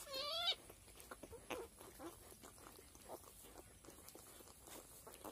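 A brief, high, wavering squeal from a newborn piglet at the very start, about half a second long, followed by faint scattered rustles and clicks of straw as the wet newborn piglets stir.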